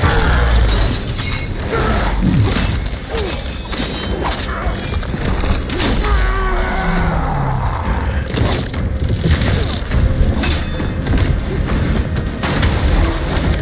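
Mixed film fight sound design for a tree-like monster's attack: a loud boom at the very start, then repeated heavy thuds, crashes and shattering hits with some gliding pitched cries, over dramatic score music.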